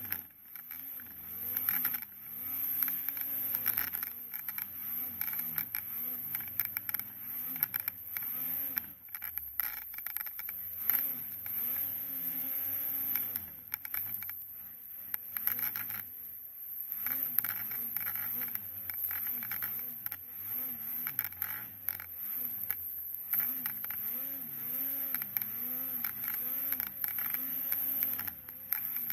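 Ski-doo Freeride 850 snowmobile's two-stroke twin engine revving up and down again and again as the throttle is worked through deep powder.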